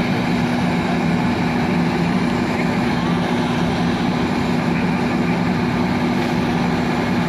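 Fire truck diesel engine running steadily, a constant low hum under an even wash of mechanical noise.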